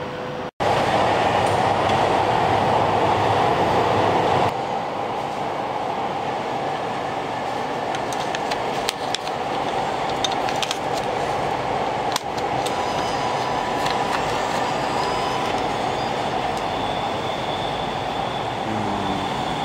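Steady loud outdoor rumble, with a few faint clicks about halfway through as a banknote is fed into a vending machine's bill acceptor.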